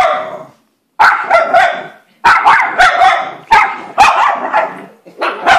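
Small schnauzer barking rapidly in quick runs of sharp, high yaps, several a second, with short pauses between runs.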